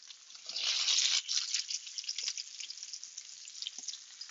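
Sliced sweet peppers hit a pan of hot oil with garlic and prosciutto. A loud sizzle surges about half a second in and lasts under a second, then settles to a steady crackling sizzle.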